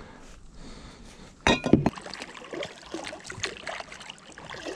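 Water splashing and trickling around an inflatable kayak as it is paddled, with a sharp knock about one and a half seconds in.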